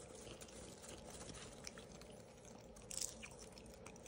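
Faint crunching and rustling of popcorn as a hand digs into a paper bucket and a capuchin monkey chews, with a sharper crackle about three seconds in.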